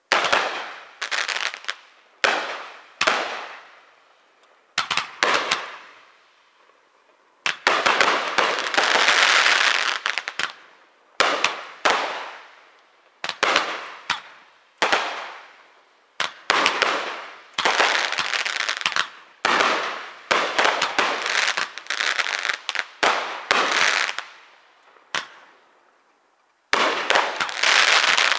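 Aerial fireworks shells going off one after another, each sharp bang trailing away. About eight seconds in, and again near the end, comes a few seconds of dense, unbroken crackling and rapid bangs.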